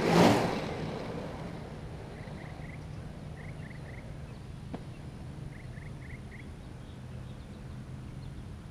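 A skater rolls past very close to the microphone: a loud rush of wheels on asphalt and wind that fades within about a second. After that, a steady low hum, and a bird calling three times in short runs of three or four quick chirps.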